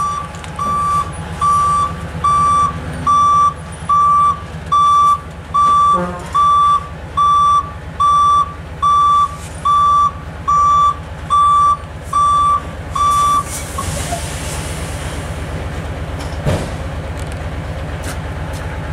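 Tipper truck's reversing alarm beeping a single steady tone, a little faster than once a second, over its diesel engine running. The beeping stops about two-thirds of the way through, and the engine keeps running.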